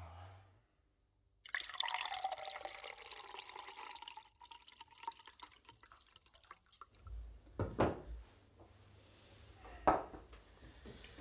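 Liquid pouring and splashing for about three seconds, then a couple of short soft knocks.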